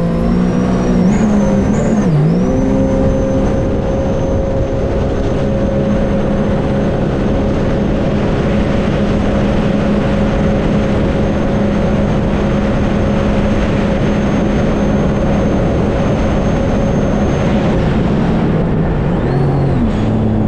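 Supercharged Rotax three-cylinder engine of a Stage 1 2021 Sea-Doo RXT-X jet ski at full throttle on a top-speed run with the RXP-X factory impeller, over a steady rush of wind and water. The engine note climbs, dips briefly about two seconds in, then holds steady at top speed, about 77 mph, until it eases off near the end.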